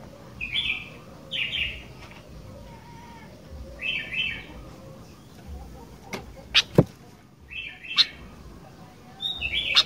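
Sooty-headed bulbul calling in short chattering phrases every second or two. Several sharp clicks fall between them from about six seconds in.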